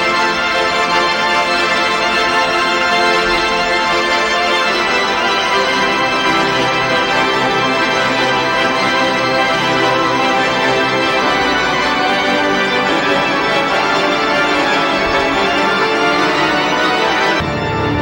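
Organ music: full, sustained chords held steadily, with the chord changing near the end as deeper notes come in.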